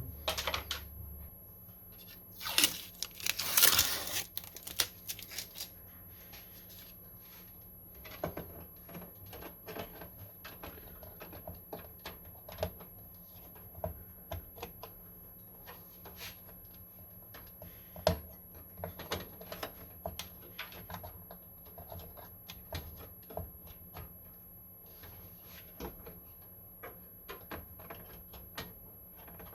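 Scattered small clicks, taps and handling noises of computer parts being worked on by hand, with a loud tearing rustle about three seconds in.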